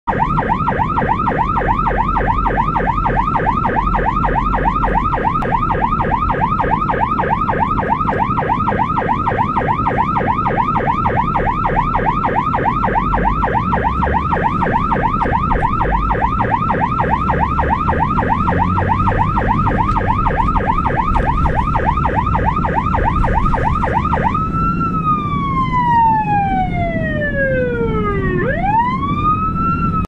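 Ambulance electronic siren in fast yelp mode, rapidly sweeping up and down about three times a second. Near the end it switches to a slow wail, gliding down over about four seconds and then rising sharply again. A low rumble runs underneath throughout.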